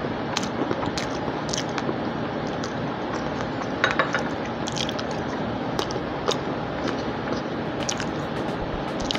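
Close-miked eating sounds: a person chewing food with wet mouth clicks and smacks scattered throughout, a cluster of them about four seconds in, over a steady hiss.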